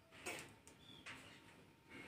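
Near silence: faint outdoor ambience, with a brief soft noise about a quarter second in and a short faint high chirp about a second in.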